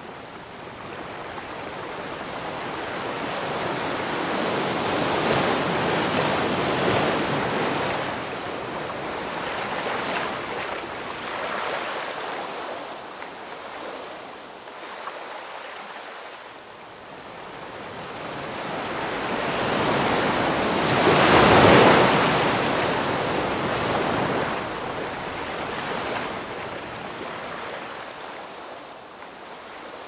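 Sea waves washing onto the shore, the surf swelling and fading in slow surges, loudest around five seconds in and again just past twenty seconds.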